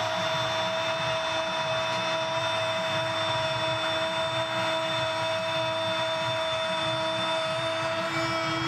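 Football commentator's long held 'gol' shout, sustained on one steady pitch for about eight seconds and dropping away near the end, calling a goal over crowd noise.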